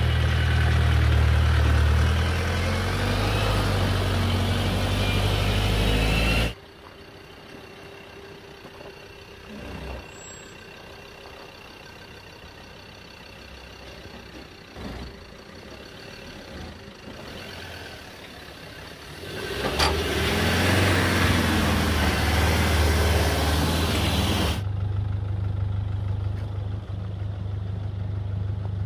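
Off-road 4x4 engines working in low gear as the vehicles crawl up a rutted dirt climb. The sound cuts off abruptly about six seconds in. A much quieter stretch follows with a few soft knocks. A loud engine returns near the two-thirds point and changes suddenly to a steadier, lower running sound near the end.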